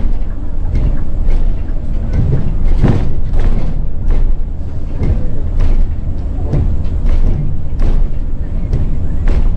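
Loud low rumble of a moving vehicle with irregular knocks and rattles throughout.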